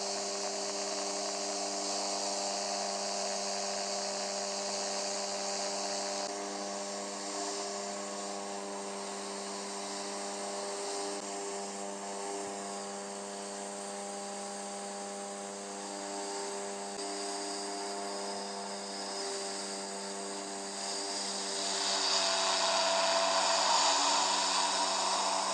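Light propeller aircraft's engine running with a steady drone. About 22 seconds in it grows louder, with a rush of air from the spinning propeller.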